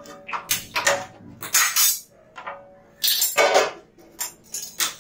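Stainless steel plate scraping and clinking against the rim of a steel mixing bowl as soaked flattened rice is pushed off it by hand: a run of scrapes and clatters, with a few lighter metal clinks near the end.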